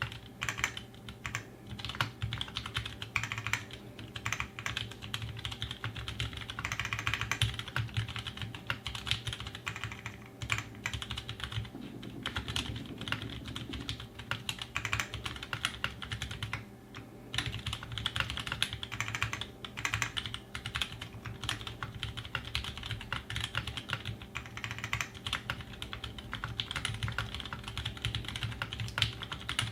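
Continuous typing on a custom 60% mechanical keyboard: an Aquaria case with aluminum plate and Zeal60 PCB, Halo Ergo tactile switches (Halo housings with Cherry MX Clear stems and 62 g springs) and GMK Laser keycaps. The keystrokes come as a fast, steady clatter, with a brief pause about 17 seconds in.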